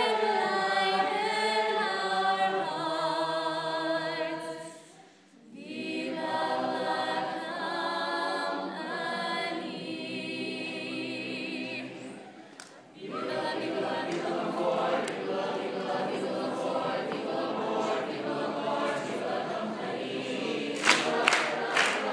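Show choir singing a cappella: several voices holding sustained notes with vibrato, breaking off briefly twice, about five and about twelve and a half seconds in. Near the end a run of sharp, evenly spaced claps begins.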